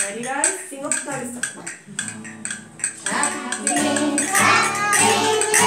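Jingling percussion shaken in a steady beat, then a group of children starts singing with instrumental accompaniment about three seconds in.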